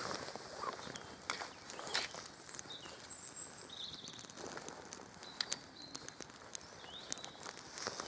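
Small campfire of dry sticks and grass burning, crackling with sharp irregular pops. A bird chirps briefly now and then.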